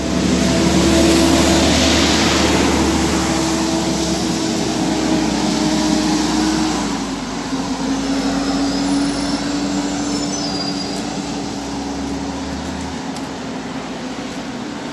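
Bus engine running close by, then pulling away and fading, with a steady hum that dips slightly in pitch about halfway through; its deep rumble drops out near the end.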